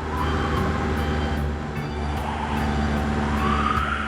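Cartoon truck engine running with a steady low drone over light background music, with a whine that rises and then falls near the end.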